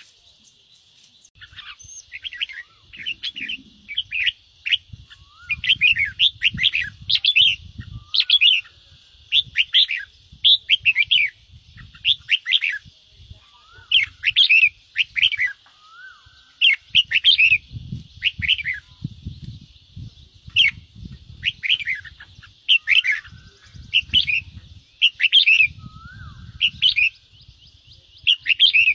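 Red-whiskered bulbul giving agitated 'ché' scolding calls: short bursts of quick, sharp, chattering notes repeated every second or so, the kind of call used to provoke other bulbuls. A low rumbling noise sits under many of the bursts.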